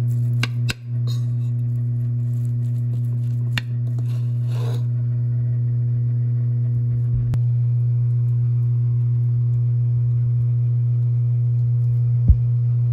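A steady low hum on one held pitch, with a few light clicks and scrapes of a metal spoon against a ceramic bowl as rice is mixed, a couple right at the start, another about three and a half seconds in, and one near the end.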